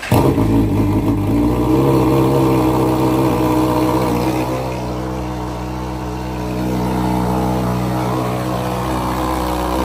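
Motorcycle engine with an SC Project aftermarket exhaust starting up loud: it catches at once, the revs rise and fall for the first few seconds, then it settles into a steady idle.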